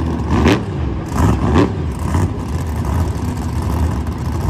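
Monster truck V8 engine running with a steady low rumble, revving up twice in quick succession in the first two seconds.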